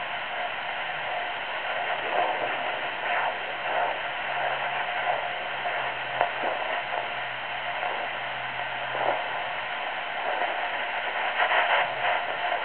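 Home fetal doppler's speaker giving out a steady hiss with irregular scratchy crackles as the probe is moved over the gelled abdomen. It is still searching and has not yet settled on the fetal heartbeat.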